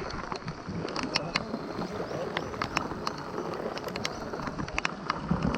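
Rain falling, with irregular drops tapping close by.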